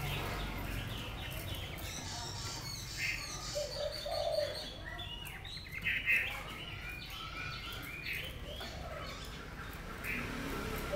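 Caged Chinese hwamei (melodious laughingthrush) singing in scattered short phrases of whistled and chirping notes, with a few lower notes in between and the loudest phrase around the middle.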